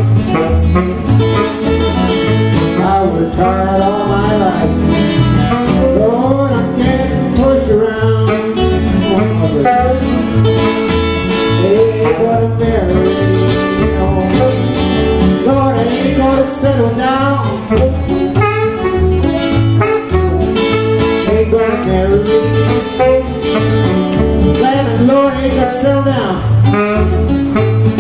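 Live acoustic blues-rockabilly band: two acoustic guitars strum a steady, even bass-note beat while a saxophone plays a wavering lead line over them.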